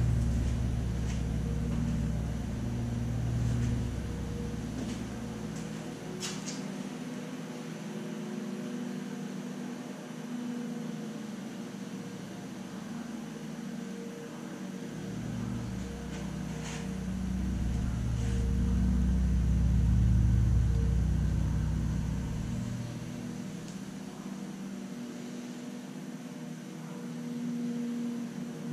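Steady low hum with a deep rumble that swells and fades twice, and a few faint clicks as the plastic resin injector of a windshield chip repair kit is handled on the glass.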